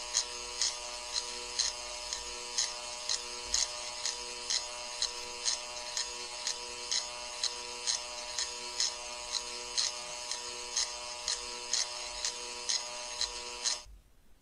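Harsh electronic buzzing drone, pulsing sharply about twice a second. It cuts off suddenly near the end.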